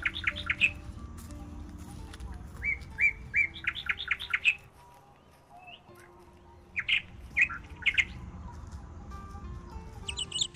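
Songbird singing in three bursts, each a few clear whistled notes followed by a quick run of chirps. A faster, higher chirping starts near the end. Soft background music with sustained notes plays underneath.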